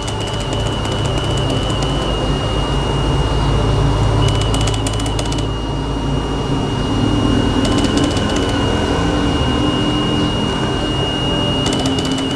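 Homemade sun tracker's stepper motor and driver circuit running: a steady high electronic whine over a low hum. In four short stretches the whine warbles in quick steps with rapid fine clicking.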